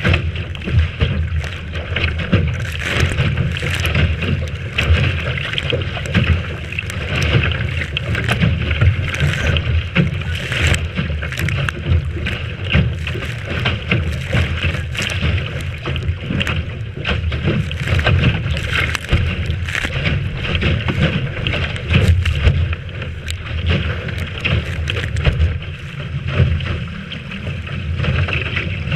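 Strong wind buffeting the microphone over water rushing and slapping along the hull of a Lightning-class sailboat sailing in a big breeze, with frequent short sharp splashes and gusts.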